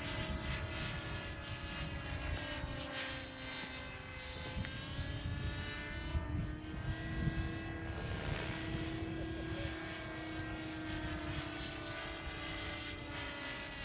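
Knight 50 3D radio-controlled model helicopter flying overhead: a steady engine and rotor whine whose pitch dips slightly about four seconds in and climbs back around eight seconds, over a low rumble.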